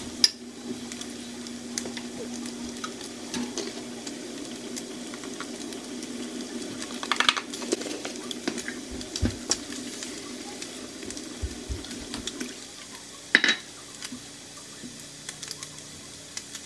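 Diced meat frying in a skillet on the stove, a steady sizzle, with scattered clinks of utensils and dishes. There are two louder clatters, about seven and about thirteen seconds in, and the background sizzle drops lower near the end.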